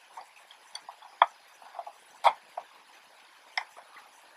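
Light, scattered clicks and taps of hands handling a Canon AF35M II camera's plastic body and a precision screwdriver, about ten small clicks with two slightly louder taps a little over one and two seconds in.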